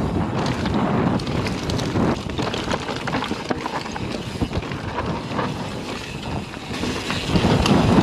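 YT Tues Core 4 29 downhill mountain bike riding fast down a loose dirt and gravel trail: tyres rolling and scrabbling over the dirt, with short rattles and knocks from the bike over bumps. Wind buffets the microphone throughout.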